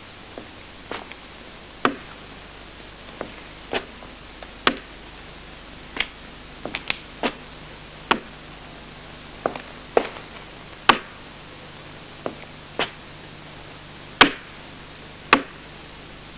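Sharp, irregular taps, roughly one a second with some in quick pairs, each ringing briefly: a walking stick striking stone as someone passes.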